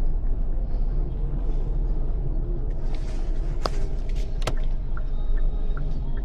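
Steady low rumble of a car driving, heard from inside the cabin, with two sharp clicks about halfway through.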